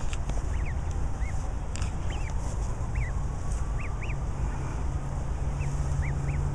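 Goslings peeping: about a dozen short, thin, rising-then-falling peeps at irregular intervals, over a steady low rumble.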